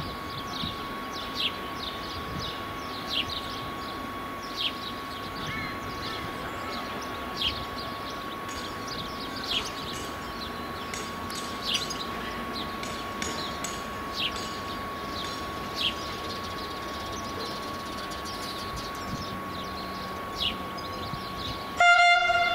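An Italian E402B electric locomotive hauling a passenger train approaches slowly with a low rumble, a steady high tone over it. A bird calls repeatedly with short falling chirps, about one a second. Just before the end the locomotive sounds its horn, loud and sudden.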